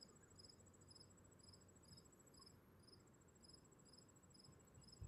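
Near silence, with faint crickets chirping evenly about twice a second over a steady high-pitched trill.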